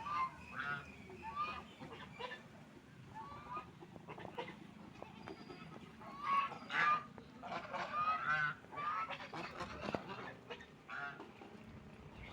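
Ducks calling over and over in short honking quacks, several birds at once, with the calls coming thickest and loudest a little past the middle.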